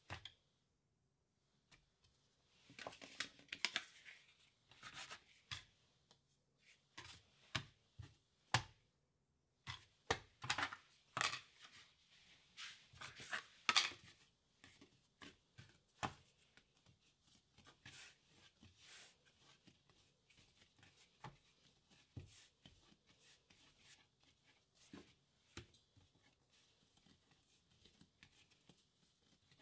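Hands handling and shaping baguette dough on a wooden chopping board: scattered soft taps, knocks and sticky rustles, busiest in the first half and lighter and quieter after about fourteen seconds.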